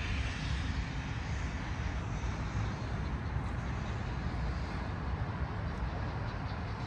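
Steady low rumble of distant city traffic and construction machinery.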